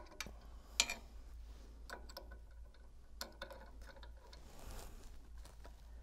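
Scattered light metallic clicks and taps of a hex key working the bolts of a pump's shaft coupling as they are tightened, the sharpest about a second in.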